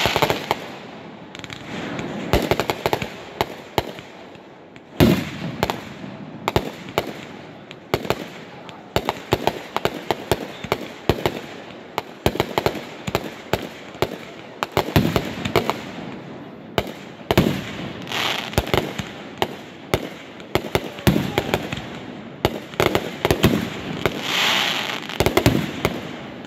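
Aerial fireworks bursting in the sky: a continuous run of sharp reports and crackling, with bigger booms about 5 seconds in and again around 15, 17 and 24 seconds in.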